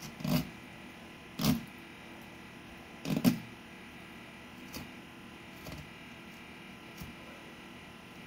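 Fillet knife cutting along a crappie's backbone on a wooden cutting board: short knocks, three louder ones in the first three seconds or so, then fainter ones about a second apart.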